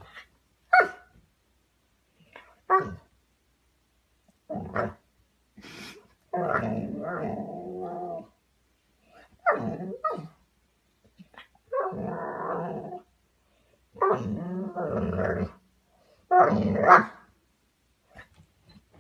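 Golden retriever puppy barking and growling in spells: short sharp barks mixed with longer growls of a second or two, with quiet gaps between them.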